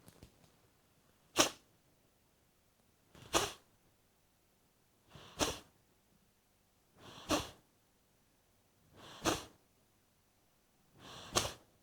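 Forceful nasal exhalations of Kapalbhati breathing through the left nostril: six short, sharp puffs of air about two seconds apart, each driven by a quick inward snap of the abdomen.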